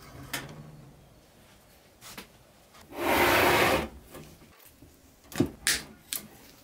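A coil of steel wire rasping against a wooden workbench for under a second as it is handled, then a few sharp clicks as side cutters snip the wire.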